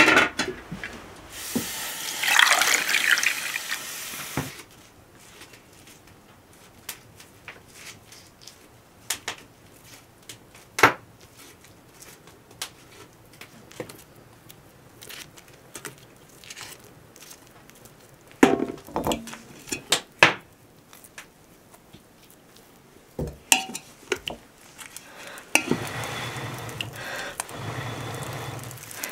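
Water pouring and splashing into a metal pot for a couple of seconds near the start. Then faint scattered clicks and scrapes of a knife peeling a potato, and a steady rushing noise near the end.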